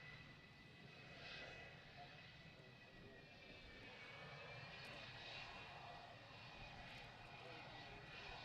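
Faint aircraft engine noise: a thin, steady whine that drifts slightly in pitch over a low hiss.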